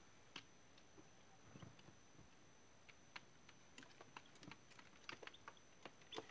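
Faint, irregular clicks and taps from a brood of few-days-old naked-neck chicks pecking at starter feed and scratching in a brooder box, a few a second and busier near the end.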